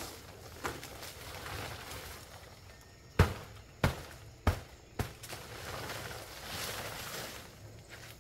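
Four sharp strikes in quick succession, about two-thirds of a second apart, between stretches of softer rustling noise.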